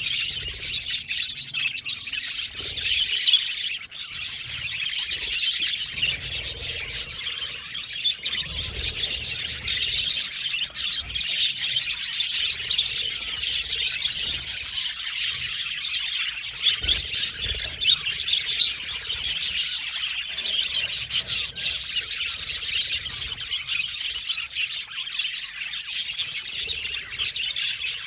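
A colony of budgerigars chirping and warbling together, a dense, continuous chatter of many overlapping calls.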